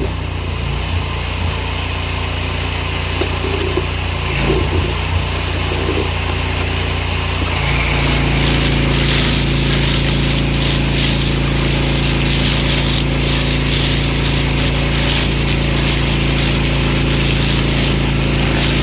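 Pressure washer running, with the steady drone of its motor under the hiss of the water jet. About eight seconds in, the drone shifts and the spray hiss gets louder.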